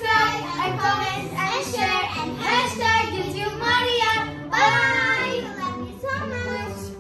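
A child singing in a high voice over background music; the voice stops about six and a half seconds in, leaving only the music.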